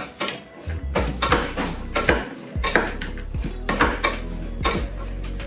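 A wooden spoon scraping and knocking against a small pot, about a dozen irregular strokes, as chopped onion and green pepper are stirred in it.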